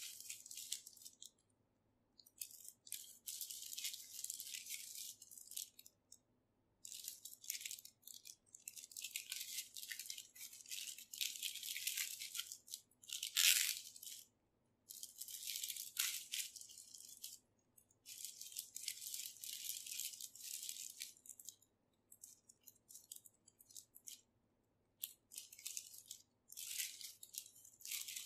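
Clear plastic packaging bag crinkling as it is handled and opened, in stretches of a few seconds with short pauses between them, and one sharper, louder crackle about halfway through.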